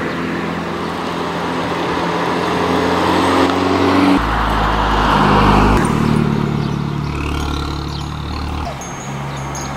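Abarth 695 XSR Yamaha's turbocharged 1.4-litre four-cylinder engine and exhaust as the car drives past, loudest about four to six seconds in as it goes by, then pulling away.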